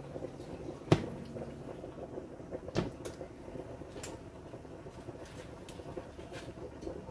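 Butter and garlic simmering in a stainless steel saucepan, a faint steady bubbling. A sharp knock comes about a second in, and a few lighter clicks follow over the next three seconds.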